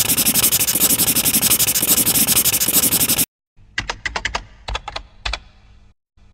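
Marker-on-paper scribbling sound effect, a fast scratchy rubbing that stops abruptly about three seconds in. Then a quick run of about eight typing key clicks.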